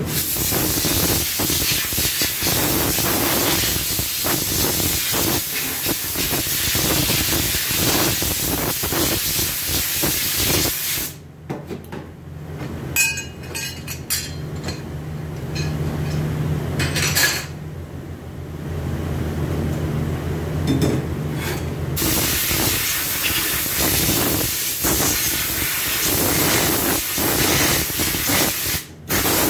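Compressed-air spray gun hissing steadily as it blasts cleaning fluid onto transmission parts over a metal grate. The spray stops for about ten seconds a third of the way in, leaving a low hum and a few clicks and knocks of parts being handled, then starts again.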